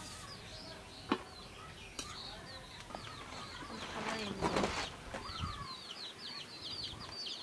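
Small birds chirping over and over in short falling notes, while a steel serving spoon clinks against a steel pot a couple of times. About four seconds in there is a louder rustling, scraping burst.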